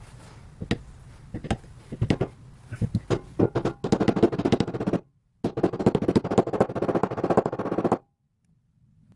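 Hammer blows on metal driving the grease seal into the back of a six-bolt Jeep Dana 30 front hub: a few separate taps, then a rapid run of blows for about a second and, after a short break, another rapid run for about two and a half seconds that stops abruptly.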